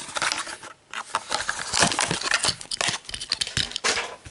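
Clear plastic blister of a Matchbox carded package being cracked open and crinkled by hand to free the die-cast car: a rapid, irregular run of crackles and snaps.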